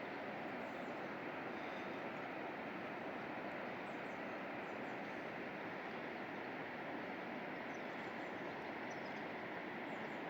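Steady rush of flowing river water, with a few faint, high bird chirps over it.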